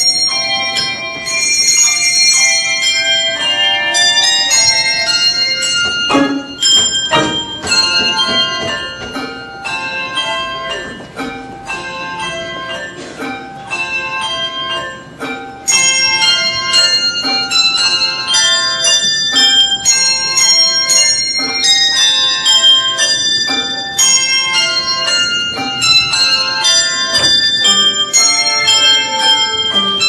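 A handbell choir ringing a tune on tuned handbells, many bells struck in turn and ringing on over one another. The playing turns softer about ten seconds in and comes back louder about halfway through.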